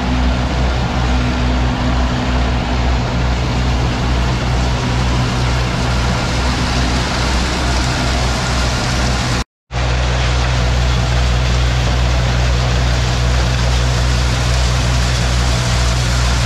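Case 830 tractor engine running steadily under load, driving a Gehl Hi-Throw forage blower, with the rush of the blower fan as chopped corn silage is blown up the pipe into the silo. The sound cuts out briefly about halfway through, then resumes unchanged.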